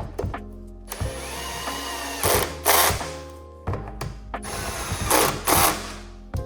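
A power drill/driver runs twice, turning taillight bolts down; each run ends in a louder burst as the bolt seats. Background music plays underneath.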